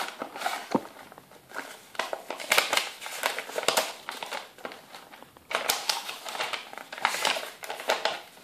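Paper instruction leaflet and cardboard packaging being handled: irregular rustling and crinkling as the folded paper is pulled from the box and unfolded, with a short lull about five seconds in.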